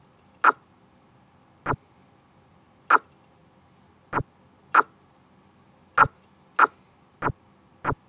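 Sharp single clicks, nine in all, spaced between about half a second and a second and a quarter apart, made while stepping through the moves of a chess game on a computer.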